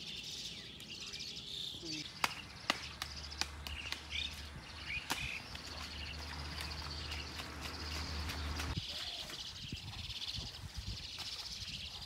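Rural outdoor ambience: a steady, high-pitched chorus of chirping insects and birds, with a few sharp clicks in the first half and a low hum that stops about nine seconds in.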